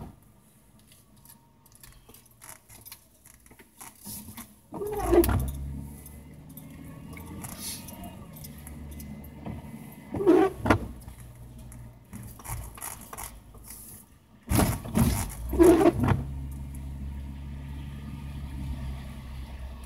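Inside a car's cabin while driving slowly on wet pavement: the engine's low hum, with the windshield wipers sweeping across the wet glass about every five seconds.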